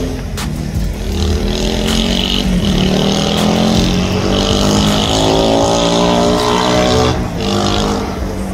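Car engine running and revving, its pitch dipping and then rising, with the revs dropping off about seven seconds in.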